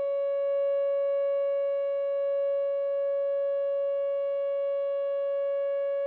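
Whelen WPS 2910 electronic outdoor warning siren sounding a steady alert tone during a monthly test, one unbroken note held at constant pitch.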